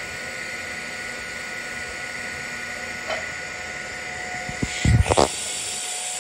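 TIG welding arc on a steel bandsaw blade joint: a steady hiss with a faint high buzz. A few loud bumps come about five seconds in.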